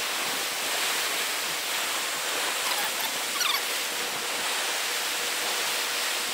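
Ocean surf washing onto the beach as a steady hiss, with a few faint short chirps about three seconds in.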